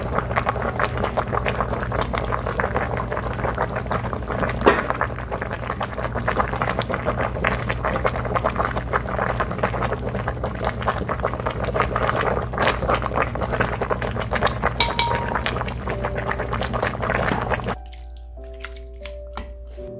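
Water splashing and pouring, with many small clinks and knocks, stopping abruptly near the end and leaving soft background music.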